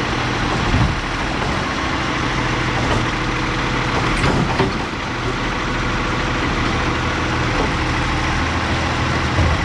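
Garbage truck engine running steadily, with a few brief knocks.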